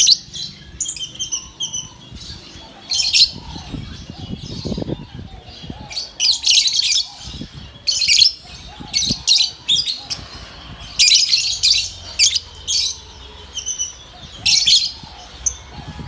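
Lovebirds chirping in loud, shrill bursts that come every second or two, with some quick runs of short repeated notes.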